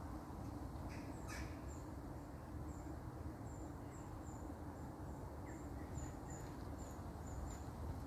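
Small birds calling overhead: a series of short, high, thin chirps, about two a second, over a faint low steady background noise.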